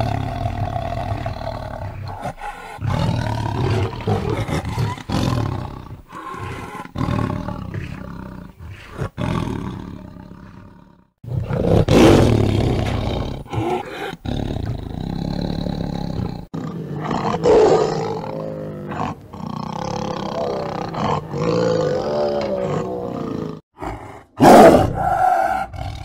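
Tiger roaring and growling in a string of separate calls joined by abrupt cuts, the loudest roars about 12 seconds in and again near the end.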